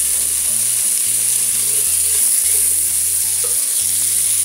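Chopped garlic and onion sizzling steadily as they sauté in hot bacon and sausage fat in a pan, stirred with a spatula.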